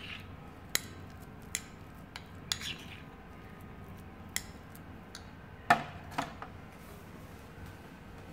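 Metal teaspoon stirring a thick beetroot and petroleum jelly paste in a glass bowl, clinking and tapping against the glass at irregular intervals about a second apart. The loudest clinks come close together about six seconds in.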